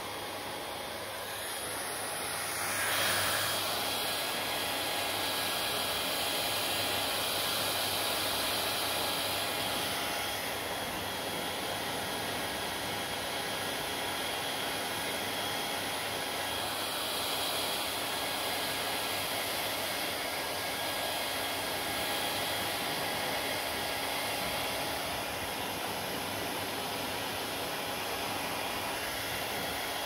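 Panasonic hand-held hair dryer blowing steadily, drying wet hair. It grows louder over the first few seconds, then runs evenly.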